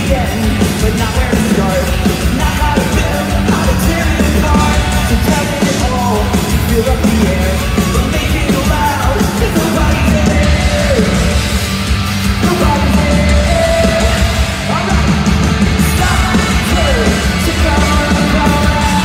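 A pop-punk band playing loud live: electric guitars, bass, drums and violin, with singing over it, picked up by a phone in the crowd.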